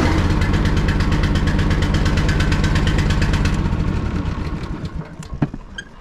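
RazorBack ride-on mower engine running steadily just after starting on its recharged battery, then switched off about four seconds in and running down, followed by a sharp click.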